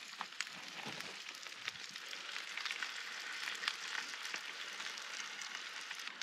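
A roast joint and potatoes sizzling in a foil tray on a portable gas barbecue: a steady hiss with many small crackles and pops of spitting fat.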